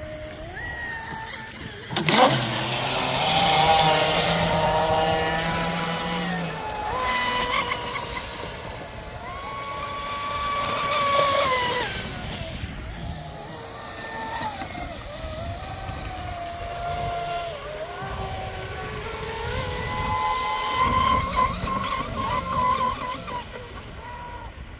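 Pro Boat Sonic Wake radio-controlled boat's brushless electric motor whining at speed over the water. Its pitch rises and falls as the throttle is worked, with a sharp jump in loudness about two seconds in as it is pushed to full throttle.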